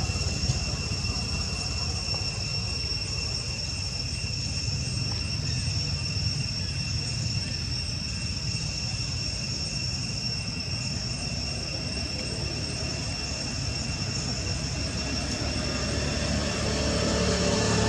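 Steady outdoor background: a continuous low rumble with a thin, steady high-pitched whine held over it. No distinct calls or knocks stand out.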